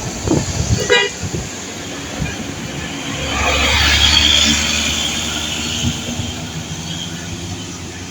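A bus passing with a short horn toot about a second in. Then its engine rumble and the rush of its passing swell to a peak about four seconds in and fade.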